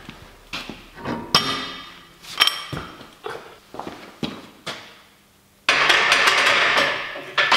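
Steel Olympic barbell clanking and ringing against steel rack hooks, several separate knocks as it is lifted off a wall rack and set onto a squat rack's J-hooks. Near the end comes a louder, rapid metallic rattling clatter lasting about a second and a half.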